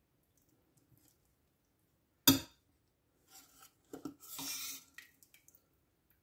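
A metal spoon serving stew into a ceramic bowl: one sharp clink about two seconds in, then a few more clinks and the wet slop of beans and sauce dropping into the bowl, followed by small light ticks.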